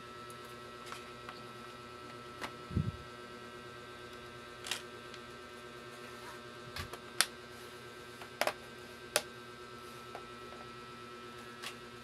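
Laptop being handled and moved on a work mat: scattered sharp clicks and knocks of plastic and parts, about six of them, the loudest about seven seconds in, over a steady faint electrical hum.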